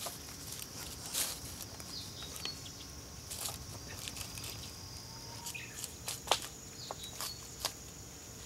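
Steady high insect drone with scattered light knocks, scrapes and rustles from rope being wound and knotted around a wooden rung lashed to a cedar trunk.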